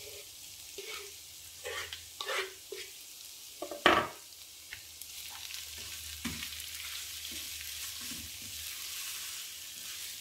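Shredded boiled chicken and sliced onions frying in oil in a nonstick pan with a steady sizzle. A wooden spatula stirs and tosses them, scraping and knocking against the pan several times, loudest about four seconds in.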